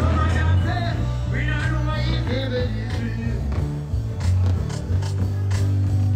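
Live dancehall music from a concert stage: a singer's voice over a heavy, steady bass line.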